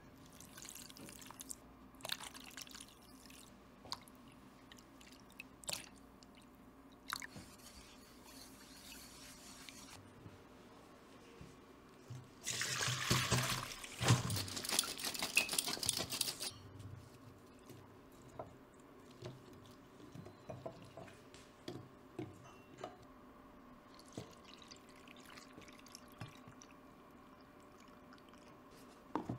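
Soft pouring and scattered small knocks of bowls and utensils. About twelve seconds in, sliced lotus root and its water are tipped from a stainless steel bowl into a mesh sieve to drain, making a splashing rush that lasts about four seconds and is the loudest sound.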